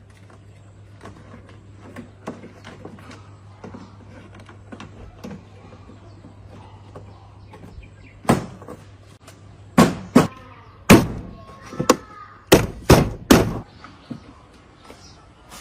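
Light clicks and handling noises over a low steady hum, then a run of about eight loud knocks over five seconds, a couple of them leaving a brief ringing tone.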